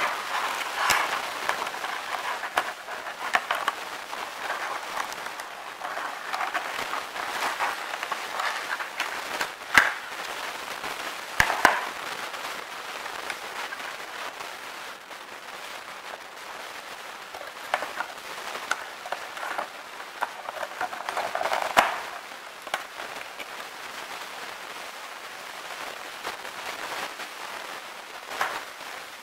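Clear plastic bag crinkling and rustling as it is handled and a model airliner is slid out of it, with irregular sharp clicks and taps among the crackling. A few louder clicks come near the middle, and the crinkling thins out toward the end.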